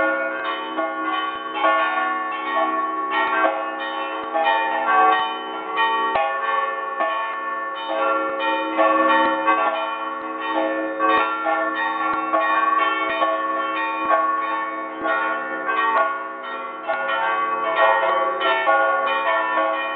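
Several church bells rung together in a full peal, heard from inside the belfry: strikes come rapidly and without pause, each bell's tone ringing on and overlapping the next.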